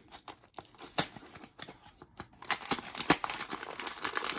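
Blind box packaging being opened by hand: a few scattered clicks and rustles, then steady crinkling from about two and a half seconds in, with one sharp snap just after.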